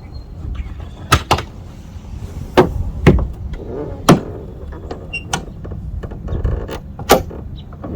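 Car hood being shut down onto a hood pin and then released and raised again: a series of about six sharp clunks and latch clicks, spread over several seconds, over a steady low rumble.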